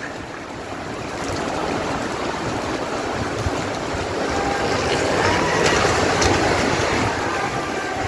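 Storm wind and heavy rain: a steady rushing noise that builds in strength about halfway through.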